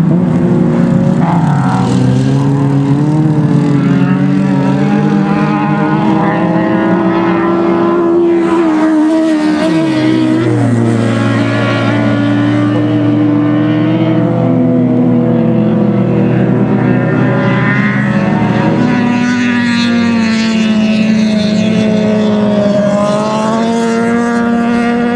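Ice-racing cars' engines revving, several overlapping, their pitch climbing and dropping as they accelerate and ease off, with a marked drop about ten seconds in.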